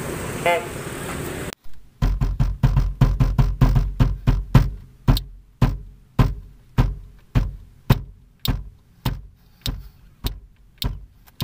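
Hand knocks on the inside of a car's roof panel, each a sharp hit with a deep thud. They come quickly and unevenly at first, then settle into a steady beat of a little under two a second. Brief street noise comes before them.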